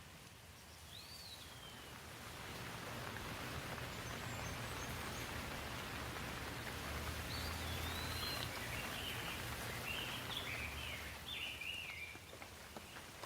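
Steady rain hiss that swells in about two seconds in and eases near the end, with songbirds chirping: one short call early, then a run of quick stepping chirps in the second half.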